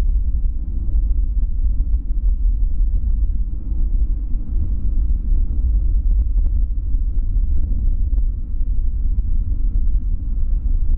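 Boeing 787-9 jet airliner rolling along the runway, heard as a low, steady rumble.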